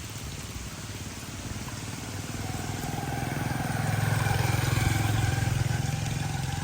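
A motor vehicle's engine running close by, growing louder over the first few seconds and then holding steady, over a constant hiss.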